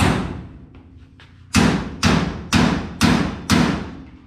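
Hammer blows on metal, about two a second, each ringing briefly: one at the start, then after a pause of about a second and a half, five more in quick succession.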